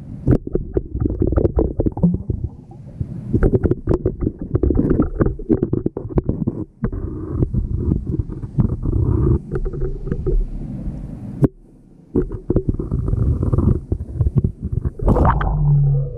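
Muffled underwater sound picked up through a GoPro's waterproof housing: a dense low rumble of moving water broken by many irregular clicks and knocks, with a louder surge about a second before the end.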